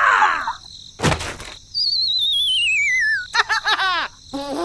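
Comic sound effects: a short rushing burst, then a long warbling whistle sliding down in pitch, followed by a run of quick squeaky chirps and a high, squeaky, sped-up voice-like sound near the end.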